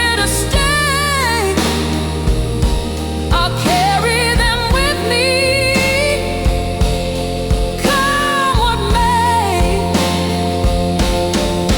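Slow blues music: a lead melody of bending, wavering notes in three phrases over steady bass, chords and drums.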